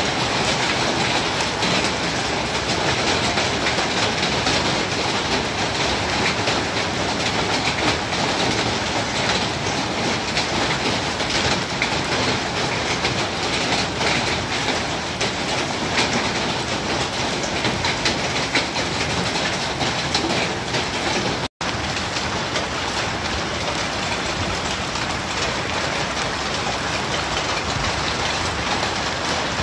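Hail falling hard: a dense, steady rattle of hailstones striking the lawn and nearby hard surfaces. The sound cuts out for an instant about three quarters of the way through.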